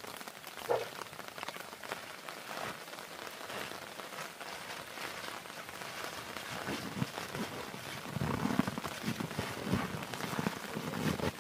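Rain pattering steadily, with many small drop hits. From about two thirds of the way in, a louder, deeper run of knocks and rustles comes in over it.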